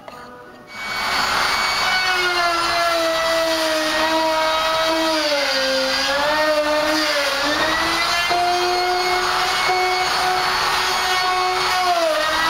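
Porter-Cable router starting up about a second in and running as it cuts a chamber into a redwood stringer and foam. Its motor whine sags in pitch under load in the middle and then recovers.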